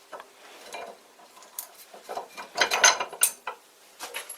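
Steel clamp parts and bolts clinking and scraping as the clamp is fitted to a drill press table: scattered clicks, with a quick run of metal-on-metal clinks about two and a half seconds in.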